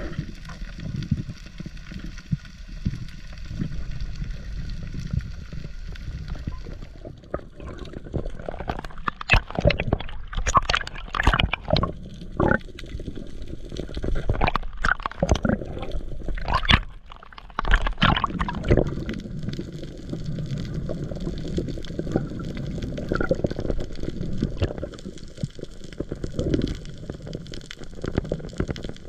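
Sea water sloshing and gurgling, with a run of louder, sharper sounds through the middle stretch.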